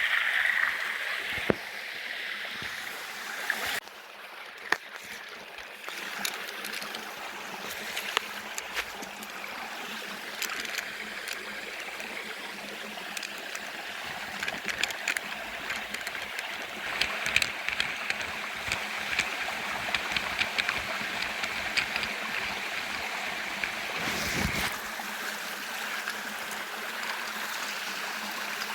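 Shallow spring-fed stream running and trickling over rocks, a steady rushing water sound, with scattered sharp clicks and knocks throughout and a low thump about 24 seconds in.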